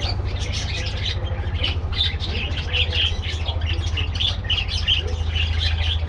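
A flock of budgerigars chattering: many short chirps and squawks overlapping without a break, over a steady low hum.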